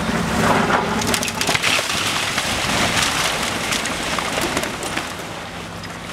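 Brick masonry and rubble falling as a long-reach demolition excavator brings down a building's wall: a dense, crackling clatter of debris that starts about a second in and eases off near the end. The excavator's engine is running underneath.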